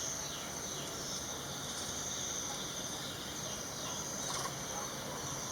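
Steady high-pitched insect drone, with faint short falling chirps repeating under it.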